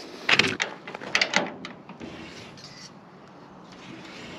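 A few sharp clicks and knocks, then a soft rustle, as a small metal barrel bolt lock on the wooden frame of a chicken tractor is handled.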